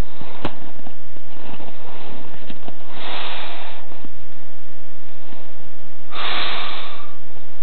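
A person sniffing twice, close to the microphone, about three seconds in and again near the end; the second sniff is longer and louder. There is a single sharp click just before the first half-second.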